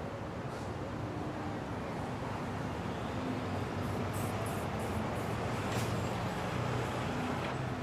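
City street traffic: a steady rumble of passing vehicles that swells a little in the middle, with a few faint high clicks about halfway through.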